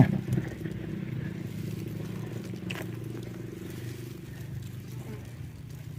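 Small boat motor running steadily at a low, even pitch, with a single faint tap a little before halfway.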